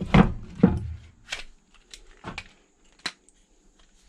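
Hand PEX crimp tool closing a crimp ring onto a 1/2-inch barb fitting: a handful of sharp clicks and clacks from the tool's jaws and handles and the parts being handled, the two loudest within the first second and three smaller ones spread over the rest.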